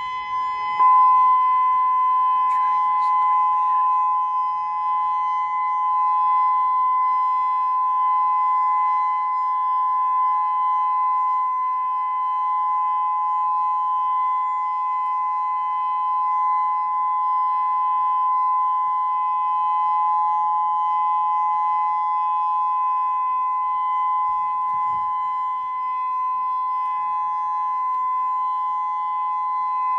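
Whelen WPS-2000-16 omnidirectional electronic warning siren sounding its steady alert signal during a monthly test. It holds two steady pitches sounding together, unbroken and without any rise or fall.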